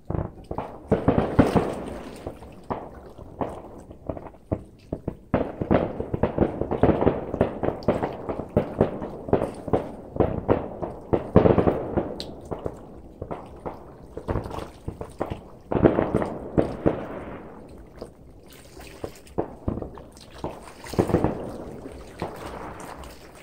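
Fireworks display going off in volleys of rapid bangs and crackling pops, with short lulls between the volleys.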